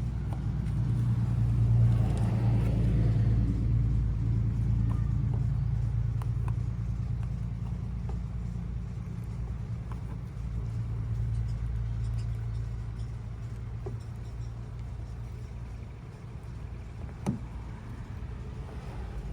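Low, steady rumble of a motor vehicle engine, swelling about two seconds in and again around eleven seconds, with a single sharp click near the end.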